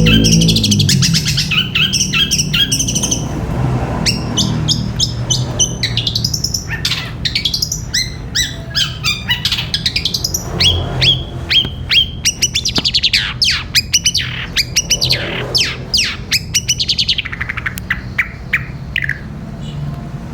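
Long-tailed shrike (cendet) singing a long run of rapid chirps and sharp falling notes. This is the 'gereja petir' song style, in which the shrike mimics the chattering of the Eurasian tree sparrow.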